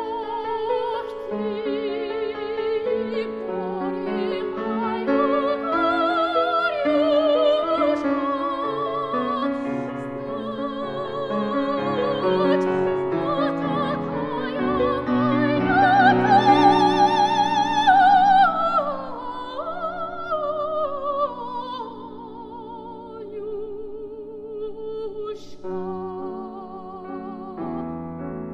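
Classically trained soprano singing with wide vibrato over piano accompaniment. The voice climbs to a loud, high held note past the middle, then falls away; near the end the voice stops and the piano plays on alone.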